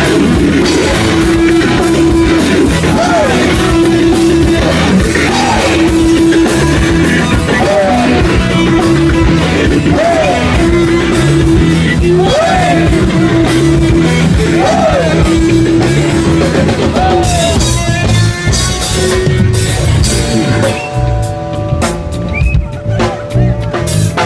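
Loud live rock band playing, with drum kit and electric guitar. About twenty seconds in the full band thins out, leaving a few held notes.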